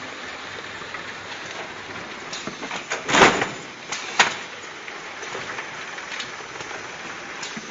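Automatic carton wrapping machine running with a steady mechanical clatter and hum. A loud short burst comes about three seconds in, and a sharp clack about a second later.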